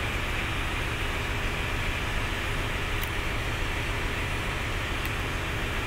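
Steady machinery drone with a hiss over it, the constant background noise inside a ship, with a few faint light clicks about halfway through and near the end.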